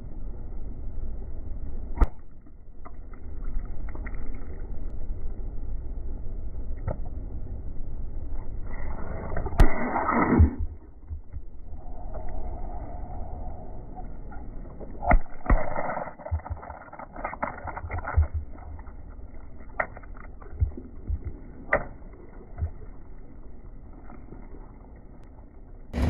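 A heavy Rolls-Royce's tyre slowly rolling onto squishy water-bead stress-ball toys over a low engine rumble. Sharp pops and crackles come several times, the loudest a noisy crunch about ten seconds in, as the toys burst and spill their water beads.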